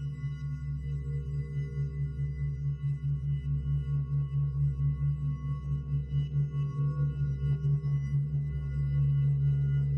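Sustained ambient drone: several steady ringing tones held over a low hum that pulses several times a second, growing somewhat louder in the second half.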